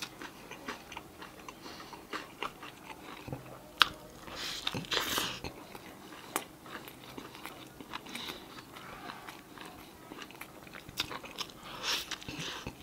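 A person eating a burger: bites and chewing with crunching and scattered small clicks, with a louder bite about five seconds in and another near the end.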